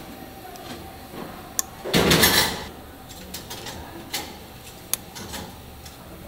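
Cooking clatter at a sweet-pancake street stall: scattered light clicks and taps, and one short, loud noisy burst about two seconds in.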